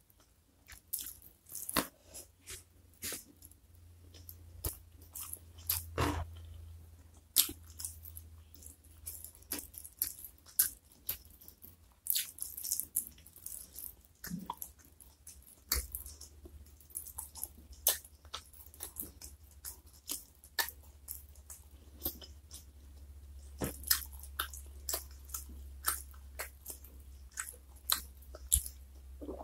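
Close-miked eating sounds: chewing and crunching with many sharp, wet mouth clicks coming irregularly.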